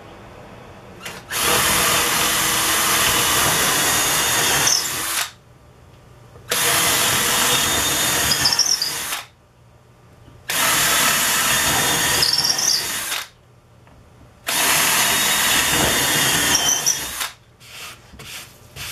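Power drill boring holes into wood: four separate runs of about three to four seconds each, with short pauses between holes.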